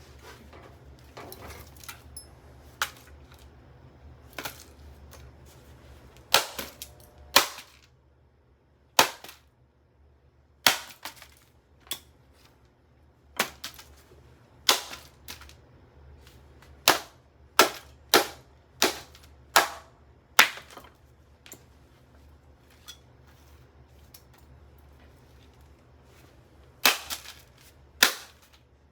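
A Revlon RVDA5036 hair dryer being smashed: a string of sharp, cracking blows on its plastic housing at irregular spacing, some in quick pairs. Under the blows runs the low, steady buzz of its running motor.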